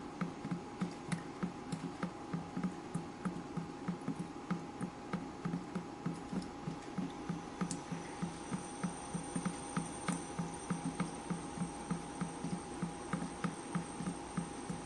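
Water dripping steadily, about two to three drops a second, each a low plop, over a faint steady hum.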